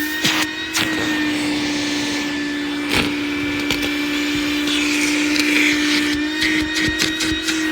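Vacuum cleaner running with a steady hum and hiss, while small debris (scraps of paper, trimmer string, bits of duct tape) clicks and rattles up the nozzle many times, with a brief louder rush of air about five seconds in.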